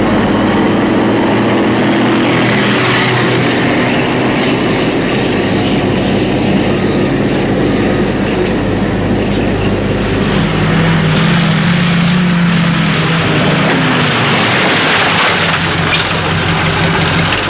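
Loud, continuous rumble of heavy truck engines, a dense steady din with a low hum underneath.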